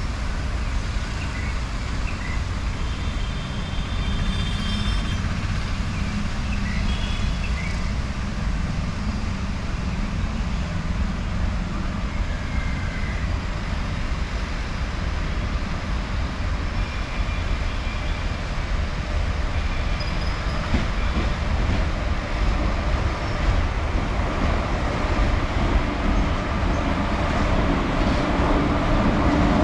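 Approaching electric-hauled express train: a steady low rumble that grows louder over the last several seconds as the locomotive draws near.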